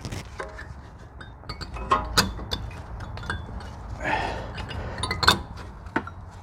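Metal brake pad and its spring clips clicking and clinking as they are worked into place in the brake caliper bracket. Irregular sharp clicks, the loudest about two and five seconds in, with a short scrape about four seconds in.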